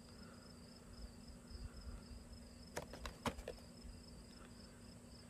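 Two soft clicks about three seconds in as a cardboard Funko Pop box with a plastic window is handled and turned around. Under them runs a faint, steady, high-pitched pulsing trill with a low hum.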